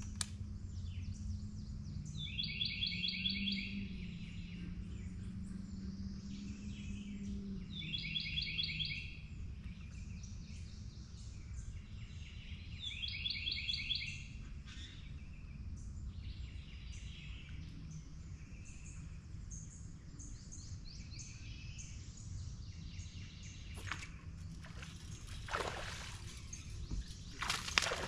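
A songbird sings a short song of rapid repeated notes three times, about five seconds apart, over a steady low hum. A few sudden sharp noises come near the end.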